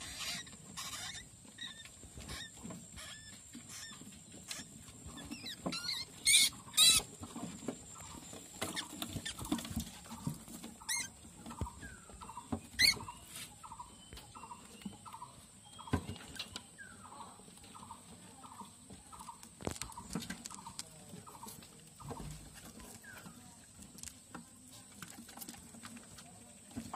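Rats squealing and scuffling in a cage as a group of white rats attacks a black rat, with scrabbling claws and ticks throughout. Two loud sharp squeals come about six and seven seconds in, and another near the middle.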